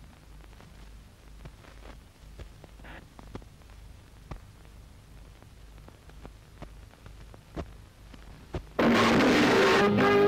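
Old film soundtrack with a steady low hum and scattered faint clicks. Near the end, a sudden loud crash of hissing noise breaks in and is joined by dramatic music.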